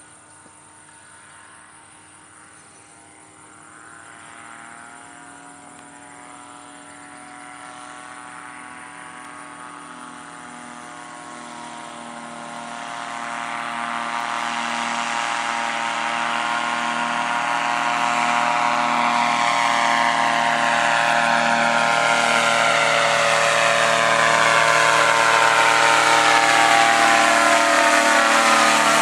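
Powered parachute's engine and pusher propeller droning, faint at first and growing steadily louder as the craft flies in low toward and over the listener, its pitch dipping slightly near the end as it passes.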